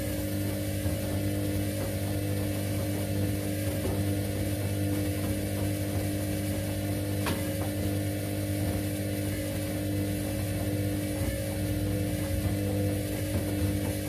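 Candy CS1292D3 front-loading washing machine in its main wash: the belt-driven drum turns steadily, the motor humming as the laundry tumbles in the wash water. A single short click comes about halfway through.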